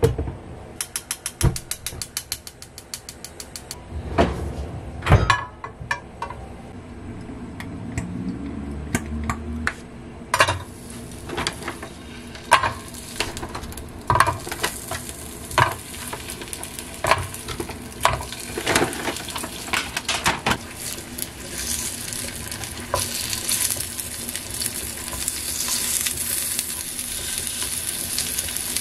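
A gas hob's igniter clicking rapidly for a few seconds, then knocks and clatter of wooden chopsticks on a square frying pan as Korean seaweed rolls (gimmari) are set into hot oil and turned. The oil sizzles, growing louder and steadier in the last third.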